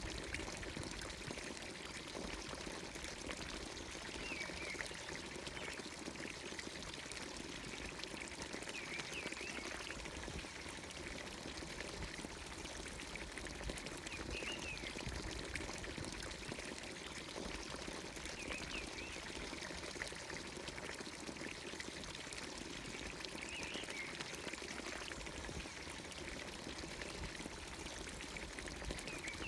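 Water pouring steadily from a village fountain's spout. A short bird call sounds every few seconds over it.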